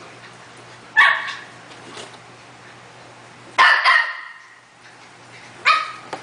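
A dog barking four times: single barks about a second in and near the end, and a quick pair in the middle.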